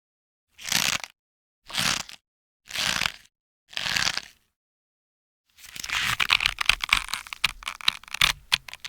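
Rubbery rope being stretched for foley: four short creaking stretches about a second apart, then a longer tension pull with dense crackling and creaking that starts about five and a half seconds in.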